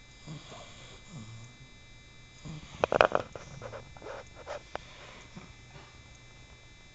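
Four-month-old English bulldog puppy snoring in its sleep, two low snores early on. About three seconds in comes a louder burst of sharp clicks and snuffles, with a few smaller ones after it.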